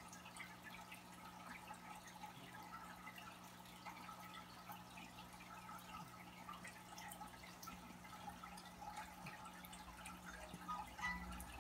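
Aquarium air stones bubbling faintly: a steady trickle of small pops and drips as the bubbles break at the water surface, over a steady low hum. A couple of slightly louder pops come near the end.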